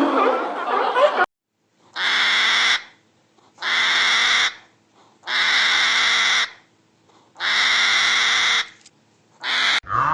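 A busy chatter of animal calls cuts off about a second in, followed by four harsh, raspy animal calls of about a second each, evenly spaced, and a short fifth call near the end.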